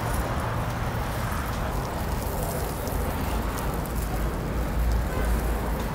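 Steady rushing background noise with a deep, continuous rumble.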